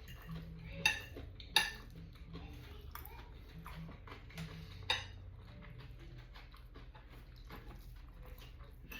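Fork clinking and scraping against a plate while eating, with a few sharp clinks in the first two seconds, another around the middle and quieter taps between.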